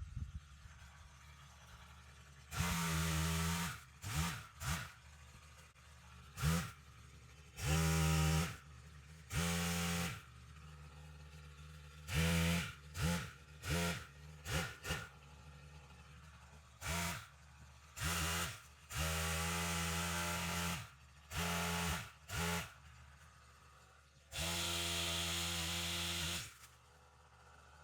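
Stihl pole saw engine revved to full throttle in about a dozen short bursts, each half a second to two seconds long, dropping back to a quiet idle between them, as dead limbs are cut off.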